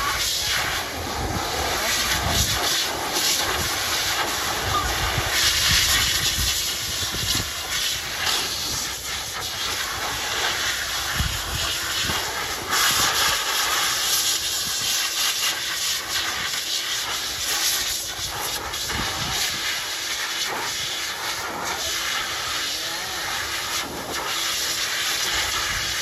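K-9 II high-velocity pet dryer running on both motors with the nozzle fitted, blowing a steady rush of air into a Samoyed puppy's coat to force-dry it after a bath. The noise swells and dips in level without letting up.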